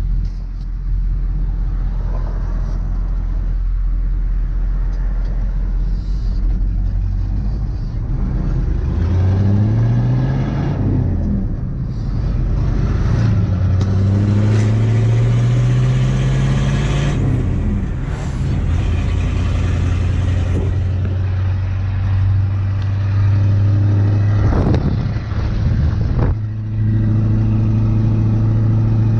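6.2-litre Detroit diesel V8 of a 1985 GMC 3500 pulling under load, its pitch rising and then dropping back several times as the manual gearbox is shifted up through the gears. Near the end it holds a steady, higher drone at cruising speed.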